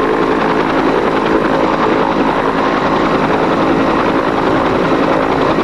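Bell UH-1H Huey helicopter running on the ground with its main rotor turning: a steady, even mix of turbine and rotor noise from its single T53 turboshaft engine.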